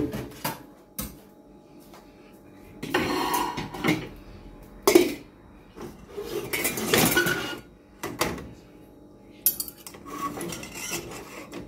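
Stainless steel pots, a metal lid and cutlery clanking and scraping in a string of separate clatters, as a lid goes onto a pot and a fork stirs pasta in a saucepan.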